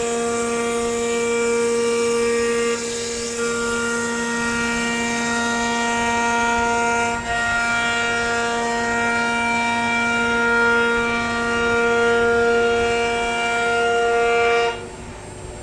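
CNC router spindle running at a steady high speed, a constant whine with several overtones, dipping briefly twice and cutting off suddenly near the end.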